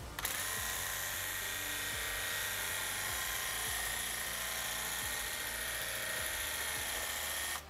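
Graco TC Pro cordless handheld airless paint sprayer running with the trigger held: the pump motor whines steadily over the hiss of the spray. It starts just after the beginning and cuts off shortly before the end as the trigger is released.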